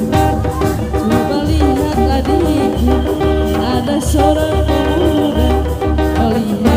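Loud Sundanese benjang processional music: a melody line over a steady low drumbeat of about two beats a second.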